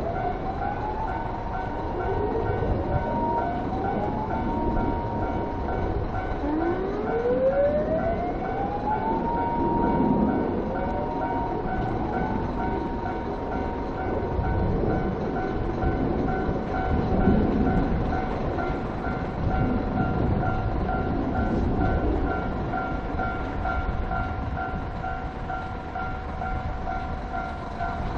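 Fire engine sirens wind up several times in the first half, each rising in pitch and then holding a steady wail. Under them a level-crossing alarm rings in a quick, even rhythm throughout, and a JR 115-series electric train runs past with a low rumble.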